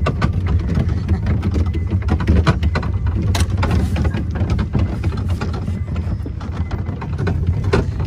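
Small farm ride train's open cars rolling along: a steady low rumble with constant irregular rattling and clacking.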